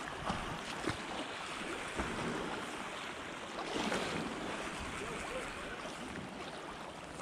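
River current washing and lapping against a rocky shoreline, with wind on the microphone. A few brief knocks in the first two seconds.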